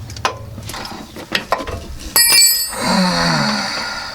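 Steel tools clicking and clinking against the suspension while a socket and wrench loosen a lower control arm bushing bolt. About two seconds in comes one sharp metal clink that rings briefly, followed by a short sound falling in pitch.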